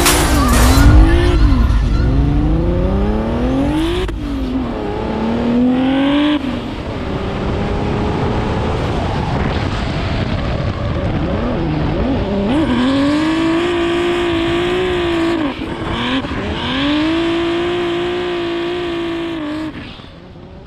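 Drift car engine revving hard, its pitch climbing and dropping again and again as the throttle is worked through the slides. In the second half the revs are held high for a few seconds at a time. The sound fades out near the end.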